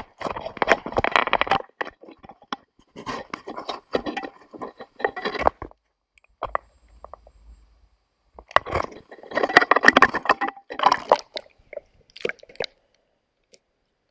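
Irregular bursts of close scraping and crunching against riverbank rocks, in three main spells with a quieter gap in the middle.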